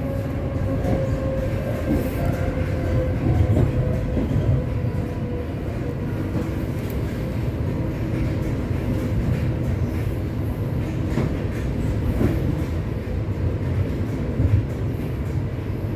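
Russian suburban electric train (elektrichka) running, heard from inside the carriage: a steady rumble of wheels and running gear on the rails. A faint whine sinks slightly in pitch over the first several seconds.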